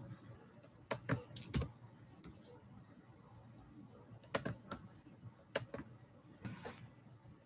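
A few scattered clicks of computer keys pressed near the microphone, in small groups of two or three, with a short brushing rustle near the end.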